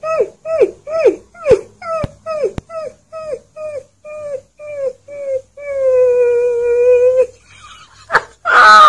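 Husky-type puppy howling: a quick string of short yelping calls that drop in pitch, about three a second, then one long steady howl held for a second and a half. A loud burst of noise comes right at the end.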